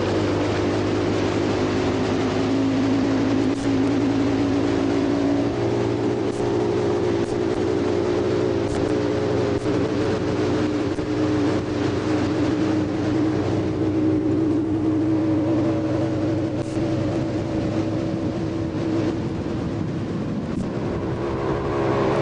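Motorboat engine running steadily as a continuous drone, its pitch shifting slightly a few seconds in.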